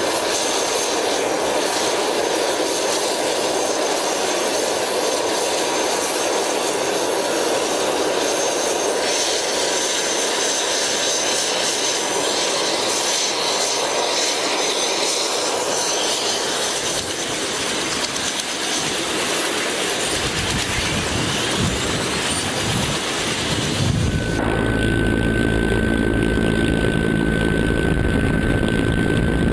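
Military attack helicopters running, a steady turbine whine over rushing rotor and engine noise. A deep low rumble builds up near 20 s in, and about 24 s in the sound changes abruptly to a heavier low rumble with a single steady high whine.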